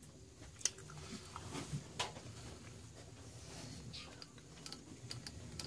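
A dog snuffling and grunting quietly, with a few light clicks and taps.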